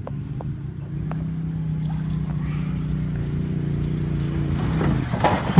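Cub Cadet utility vehicle's engine running steadily as it drives toward the listener, slowly growing louder, with a short loud rush of noise near the end as it comes close.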